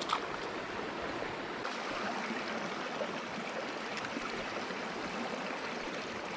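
Steady rush of river water flowing over rocks, with a small click about a second in.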